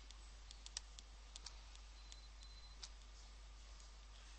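Pen stylus tapping and scratching faintly on a tablet screen during handwriting: about ten small, irregular clicks over near silence.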